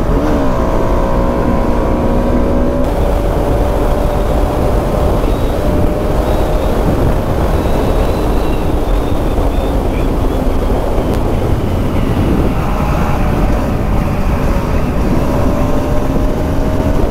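Bajaj Pulsar RS200's single-cylinder engine running at cruising speed, heard from the rider's seat under a heavy rush of wind and road noise. The engine note drops a little around the middle and climbs again near the end.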